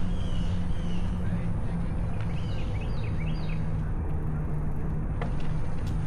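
Birds chirping outdoors: a few short whistles, then a quick run of rising chirps about halfway through, over a steady low rumble of wind and riding noise. A single sharp click near the end.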